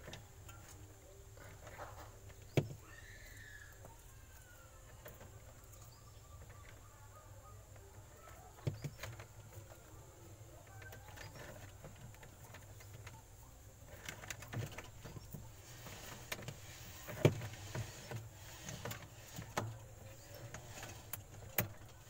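Quiet handling noise of electrical tape being wrapped around spliced wires in a refrigerator's wiring: scattered light clicks and rustling, busier in the last several seconds. Faint chirps in the first few seconds.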